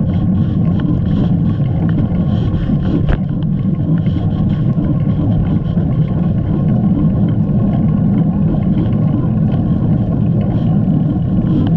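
Steady low rumble of wind and tyre noise from a bicycle being ridden, with a few faint clicks.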